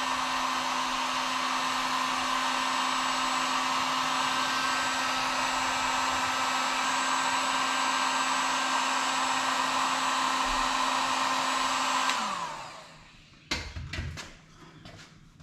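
Electric heat gun blowing steadily with a fan whine, warming a rubber fuel hose to soften it for fitting onto a primer bulb. About twelve seconds in it switches off and its fan winds down, followed by a few knocks and clicks.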